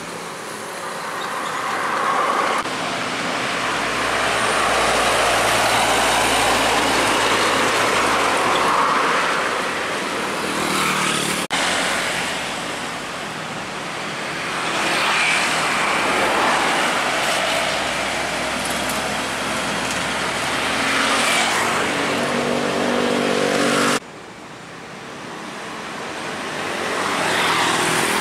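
Heavy trucks driving past on a highway, among them a Hino fuel tanker: diesel engines and tyre noise swelling and fading as each one goes by, with a steady engine hum from a nearer truck before the sound breaks off suddenly, twice in all.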